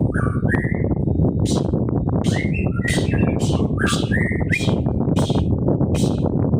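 Cucak ijo (green leafbird) singing a rapid run of short rising chirps and whistled notes, over a loud steady low rumbling noise.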